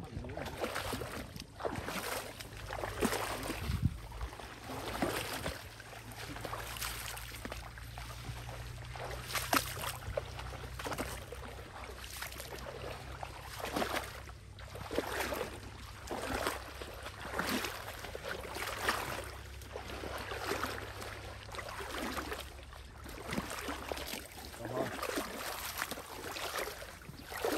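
Legs wading through knee-deep floodwater, sloshing and splashing with each stride at an uneven pace of one step every second or two.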